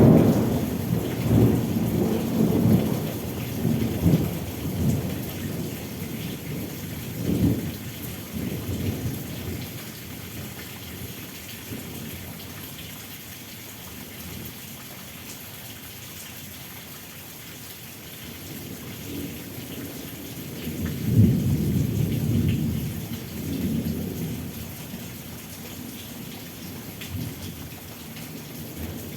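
Thunder rumbling over steady rain. One long rumble dies away over the first ten seconds or so, and a second rumble swells up about two-thirds of the way through, then fades.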